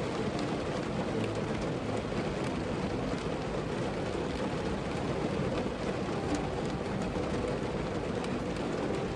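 Steady rain falling on a car, heard from inside the vehicle, with the faint ticks of single drops.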